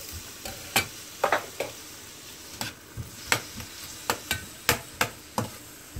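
Chopped red onion frying in hot oil in a steel pan, with a steady sizzle. A metal spatula stirring it knocks and scrapes against the pan in about ten sharp, irregular taps.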